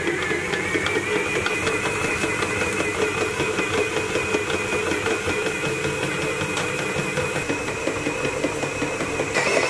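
Kenwood Chef XL Titanium stand mixer's motor running steadily under heavy load as its dough hook kneads a 2.5 kg bread dough, the mixer's rated maximum. The motor gives a steady whine over a dense, irregular ticking.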